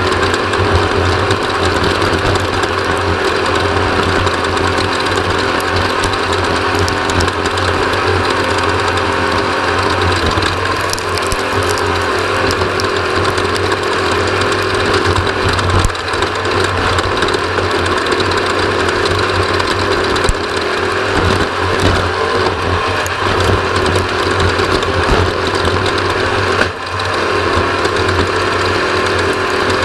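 Off-road race vehicle's engine running hard under a constant mechanical rattle of the chassis, heard from an onboard camera. The level dips briefly near the end.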